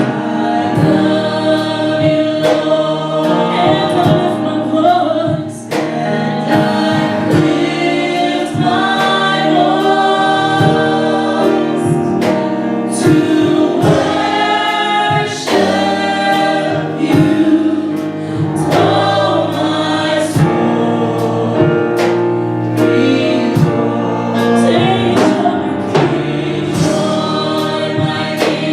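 Gospel vocal group singing together over instrumental accompaniment, with a steady drum beat.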